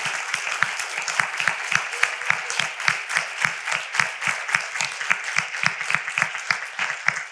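Audience applauding: a dense, sustained spread of handclaps, with single sharp claps standing out.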